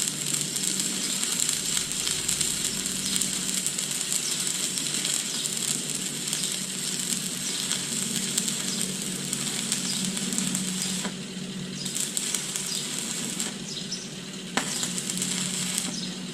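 Stick-welding arc crackling and sizzling steadily with a low hum as a capping pass is run with a welding rod, the crackle faltering briefly a few times in the later part.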